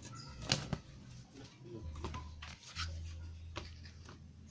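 Foam-board puzzle sheets and their thin card package being handled and shuffled: a few light taps and clacks as the boards knock together and are set down, over a low rumble.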